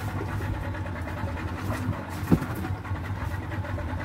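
Small fishing boat's engine idling steadily, with a single knock about two seconds in.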